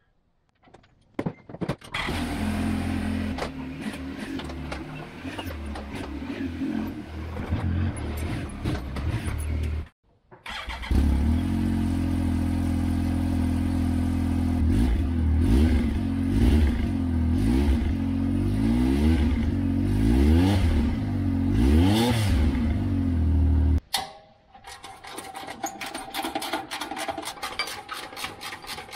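Yamaha YXZ1000R's three-cylinder engine running through its stock muffler: idling steadily, then, after a cut, idling and revved in a series of quick blips. Near the end, scraping and clicking of hand tools working at the muffler mount.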